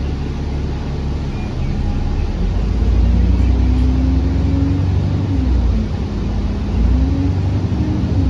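A London bus's engine and drivetrain pulling away, heard from on board: a low rumble with a whine that rises in pitch, drops about halfway through as the gear changes, then rises again near the end.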